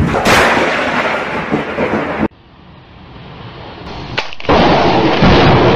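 Thunder from a close lightning strike: a sharp crack about a quarter second in, then loud rumbling noise that cuts off abruptly a little after two seconds. After quieter noise, a second loud thunderclap comes about four and a half seconds in.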